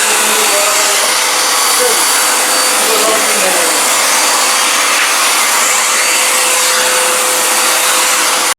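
Eureka Forbes Euroclean X-Force canister vacuum cleaner running steadily under suction, with a steady whine in its motor noise. The sound cuts off suddenly near the end.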